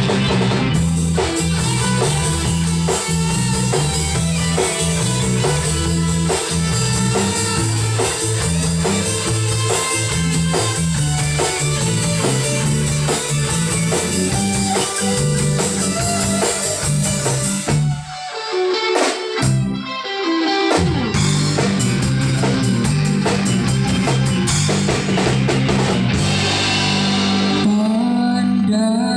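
A band playing an instrumental break of a Malay pop song: guitar over bass and a drum kit with a steady beat. About eighteen seconds in the band stops for a couple of seconds, apart from a few single hits, then comes back in together.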